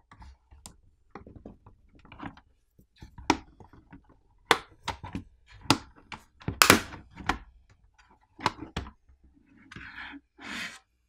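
Plastic snap-fit catches of the ASUS RT-AX82U router's back housing popping loose as the housing is pried apart by hand: a string of sharp, irregular clicks and snaps, the loudest about two-thirds of the way through. Near the end, plastic scrapes as the two housing halves slide apart.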